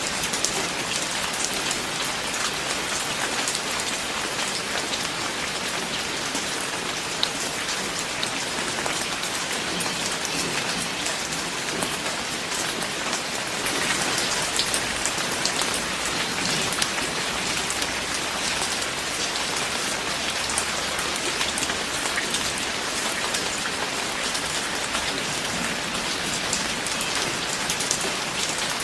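Steady rain falling on a surface, with many individual drop hits standing out as sharp ticks; it swells a little about halfway through.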